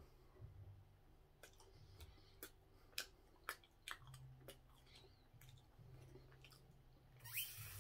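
Faint mouth sounds of a man chewing a soft steamed bun: scattered wet clicks and smacks over a low hum. A short rushing noise near the end is the loudest sound.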